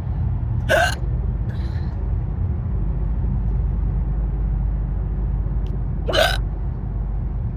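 A woman hiccupping twice, about five and a half seconds apart, each a short sharp catch of the breath, over the steady low rumble of a car on the road.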